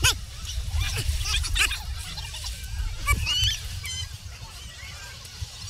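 Scattered short shouts and whoops from people, over a steady low rumble of wind and movement on the microphone.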